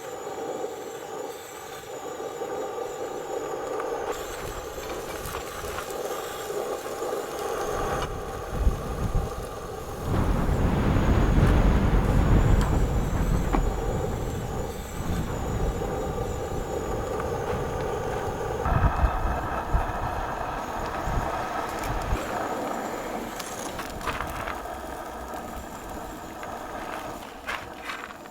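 A vehicle driving: steady engine and road noise, with a louder, deeper rumble for a few seconds about ten seconds in.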